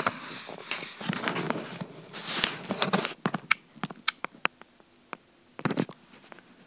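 Handling noise of small objects on a table: rustling for about three seconds, then a run of sharp clicks and taps, with a short cluster of knocks near the end.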